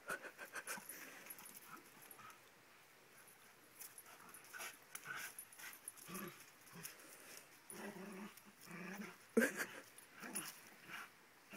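Old English Sheepdog growling and whining in short bursts as it tugs at a lead, mixed with scattered sharp clicks and crunches of stones underfoot. The loudest burst comes about three-quarters of the way through.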